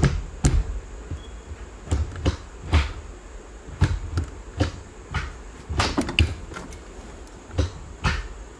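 Honda CRX manual gear shifter, fitted with a short-throw shifter and solid aluminum linkage bushings, being rowed through the gears. It makes a series of short, sharp clunks as the lever snaps into each gate, some coming in quick pairs.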